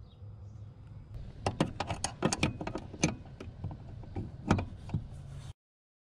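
Irregular sharp metallic clicks and knocks of a spanner working the 12 mm lock nut on the clutch pedal's push rod under the dashboard, starting about a second in. The sound cuts off suddenly near the end.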